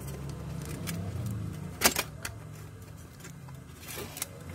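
Car stereo head unit's metal chassis and circuit board being handled: a few light clicks and knocks, the loudest about two seconds in, over a steady low hum.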